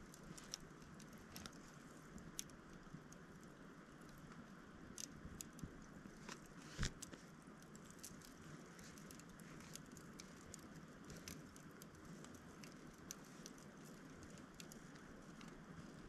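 Wood campfire burning: faint, scattered crackles and ticks, with one sharper pop about seven seconds in, over a soft steady hiss.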